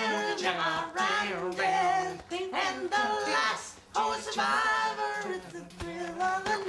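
A song with a high sung vocal in phrases of long held notes, over a steady backing.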